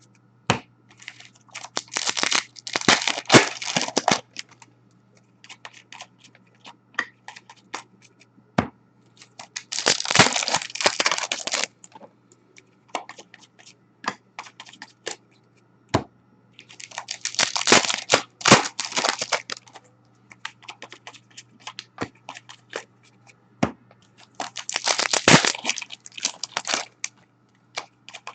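Hockey card packs being torn open one after another, four ripping-and-crinkling wrapper tears several seconds apart, with light clicks and flicks of the cards being handled in between.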